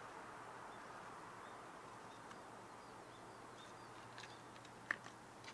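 Faint outdoor ambience: a soft hiss that slowly fades, with a few faint high bird chirps, and a single sharp click about five seconds in.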